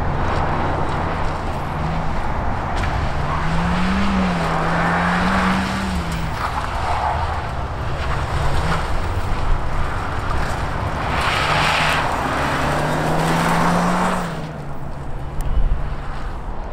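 Small hatchback's engine revving hard through a cone course, its pitch climbing and dropping as the driver accelerates and lifts for the bends. It is loudest twice, about four to six seconds in and again about twelve to fourteen seconds in.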